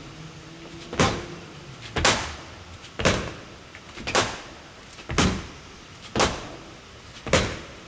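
A short stick hitting a hanging Century heavy bag seven times, about one sharp hit a second, during a drill of lateral pivoting strikes.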